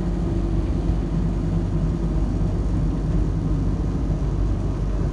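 Bombardier Flexity Outlook (T3000) tram heard from inside while running along the street: a steady low rumble with a constant hum.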